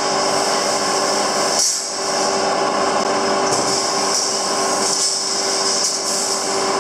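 Steady, dense mechanical workshop noise with a constant hum running under it, dipping briefly just under two seconds in.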